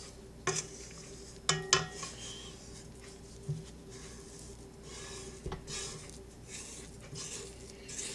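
A spatula scraping and knocking against the sides and bottom of a stainless steel stand-mixer bowl as thick cookie dough and flour are worked down by hand. There are several short sharp scrapes and knocks a second or more apart.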